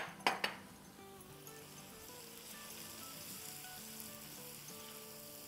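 Onions and spices sizzling in hot oil in a wok, the hiss thickening from about two seconds in as they are stirred, under quiet background music. Three sharp taps right at the start, a utensil knocked against the wok.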